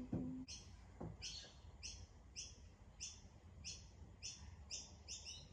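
A bird chirping: a run of short, slightly falling high chirps, faint, coming quicker toward the end. A couple of soft knocks in the first second as pliers are picked up and handled.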